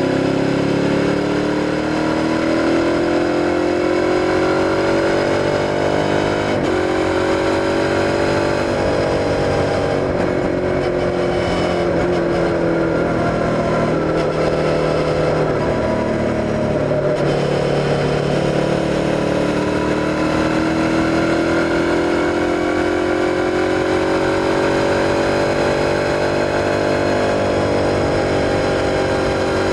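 Suzuki SV650's 645 cc 90-degree V-twin engine under way, heard without wind noise: it pulls up through the revs for the first few seconds with a sudden break about six seconds in, eases off and drops through the middle, then accelerates again from about eighteen seconds and holds steady near the end.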